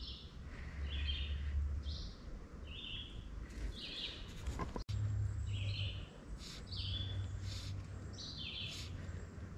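A songbird calling repeatedly in short chirps, roughly once or twice a second, over a steady low outdoor rumble.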